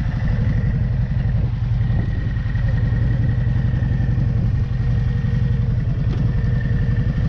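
Touring cruiser motorcycle engine running steadily at low speed, heard from the rider's seat as an even, low pulsing, with a thin steady whine above it.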